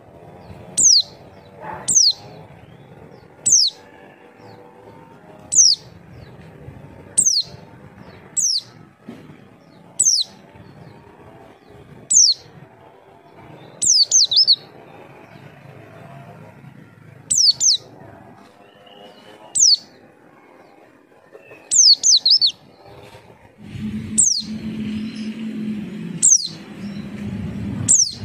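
White-eye (pleci) giving a calling call: a series of short, sharp, high notes, each falling in pitch, about one every one and a half to two seconds. It is used as a lure to get other white-eyes to answer. A low hum comes in underneath near the end.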